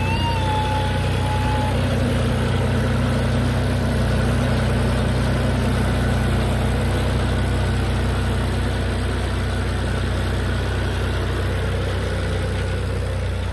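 John Deere tractor's diesel engine running steadily with a low, even hum. In the first second or two a brief high warbling tone fades out.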